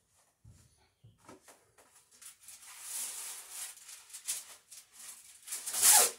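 A couple of soft footfalls on the wooden shop floor, then irregular rustling and scraping as something is handled, with the loudest burst near the end.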